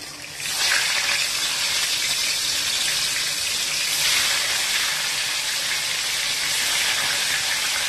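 Hilsa fish pieces sizzling steadily as they fry in hot oil in an aluminium kadai, starting about half a second in as the first piece goes into the oil.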